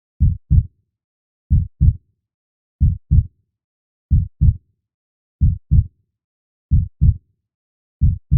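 Heartbeat sound effect: a slow, steady lub-dub, each beat a pair of low thumps about a third of a second apart, repeating about once every 1.3 seconds.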